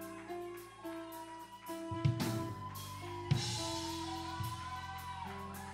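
Slow music under the sermon: held chords with a few drum hits and a cymbal wash after the first two.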